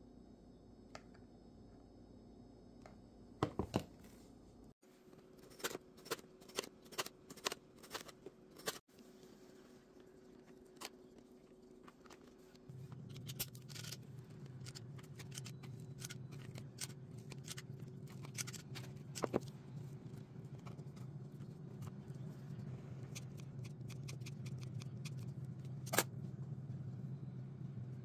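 Quiet food-preparation handling sounds. A run of sharp clicks and snips comes a few seconds in; then a steady low hum sets in, with occasional clicks over it.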